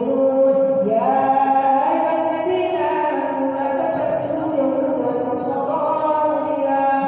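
A man reciting the Qur'an in Arabic in a slow melodic chant, holding long notes and ornamenting them with small turns of pitch.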